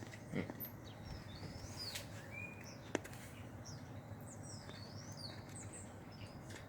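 Birds chirping: scattered short, high chirps and quick swooping calls over a steady low background noise, with one sharp click about three seconds in.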